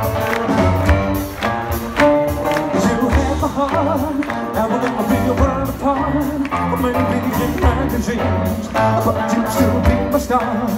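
Rockabilly band playing live, with male lead and backing vocals over upright bass, drums and piano, heard from the audience.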